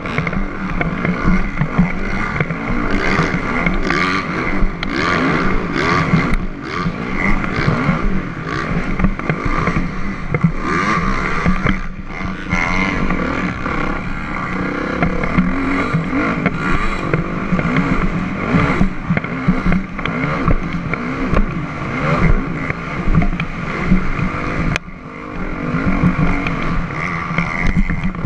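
Motocross dirt bike engine revving up and down as it is ridden hard around a dirt track, heard close up from the bike itself. The engine drops off briefly near the end before picking up again.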